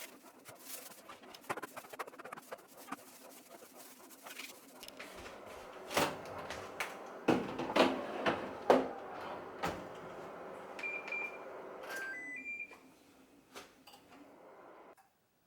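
Kitchen clatter, a series of sharp knocks and clicks, followed by an appliance's electronic beeps: two short beeps, then a quick rising three-note chime.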